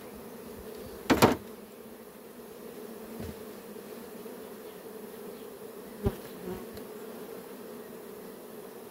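Honeybees humming steadily in an open hive full of frames, with a sharp knock about a second in and a lighter knock about six seconds in.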